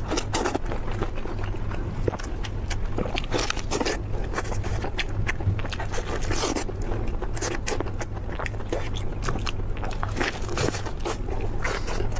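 A person biting and chewing beef meat off the bone, close to the microphone: a string of irregular wet clicks, smacks and crunchy scrapes over a steady low hum.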